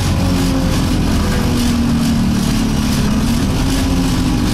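Alexander Dennis Enviro200 single-deck bus heard from inside the passenger cabin while on the move. The engine drones steadily, its pitch shifting a little, with the annoying vibration sound carrying through the cabin.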